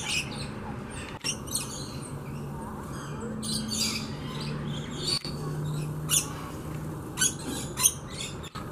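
Birds calling in short, sharp, high-pitched chirps and squawks, a few at a time at irregular intervals, over a low steady hum.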